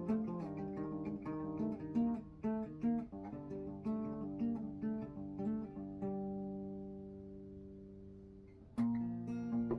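Acoustic guitar playing an instrumental passage: a run of picked notes, then a chord left ringing and slowly fading for almost three seconds, and a new chord struck near the end.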